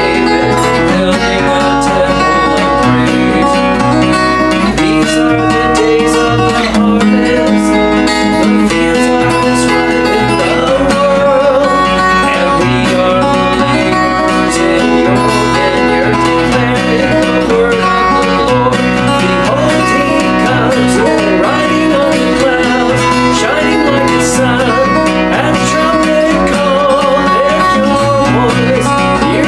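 Acoustic guitar strummed steadily, with a man singing a worship song over it.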